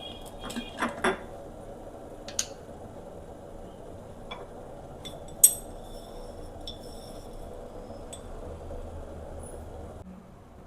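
Crockery and cutlery clinking and knocking as coffee is made: a quick cluster of clinks at the start, then scattered single clinks, the sharpest about halfway through, over a steady low rush that cuts off near the end.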